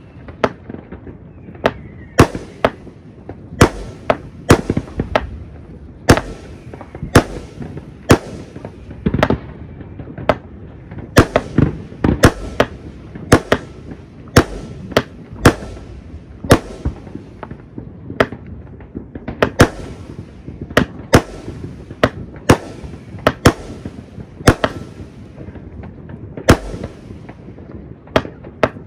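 Consumer fireworks going off: a long, irregular run of sharp bangs, one or two a second, over a steady background of crackle and distant firing.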